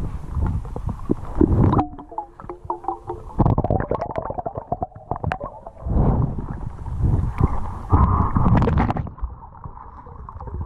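Muffled underwater rumbling and gurgling of river water moving around a GoPro in its housing as a free diver swims, with scattered clicks and knocks and a brief wavering hum about two seconds in.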